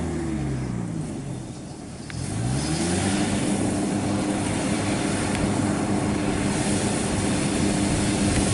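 Kubota combine harvester's diesel engine easing off in revs in the first second, then revving back up about two seconds in and running steadily at working speed with a broad rushing noise over it.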